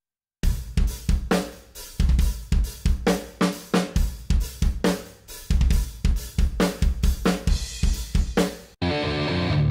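Nu metal drum loop from a sample library: a drum kit playing a groove of kick, snare, hi-hats and cymbals, starting about half a second in. Near the end it switches to an electric guitar riff loop.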